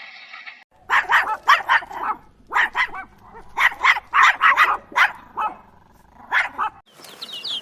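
A dog barking repeatedly in quick runs of several barks. It starts about a second in and stops shortly before the end.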